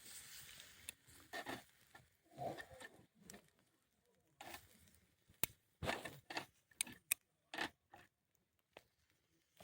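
A dozen or so small, sharp clicks and taps at irregular intervals, with a few soft rustles early on; the clicks come closer together in the second half.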